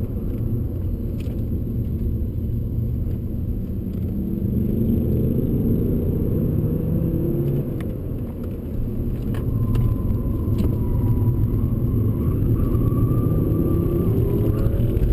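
Alfa Romeo 159 2.4 JTDm's five-cylinder turbodiesel heard from inside the cabin under hard acceleration, with road rumble. The revs climb twice, with a brief drop about halfway through.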